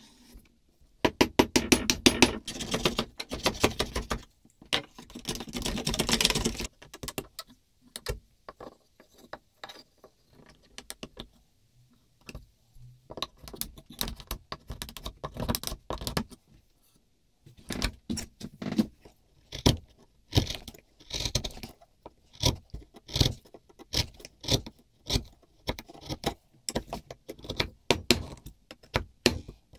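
Hand woodworking on a beech plane body: about a second in, two bursts of rapid scraping strokes, then after a quieter stretch a long run of quick, separate chisel cuts paring into the wood.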